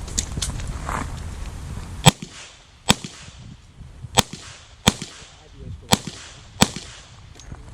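Six .38 Special revolver shots, sharp cracks fired at an uneven pace of roughly one a second: a full cylinder emptied during a shooting stage.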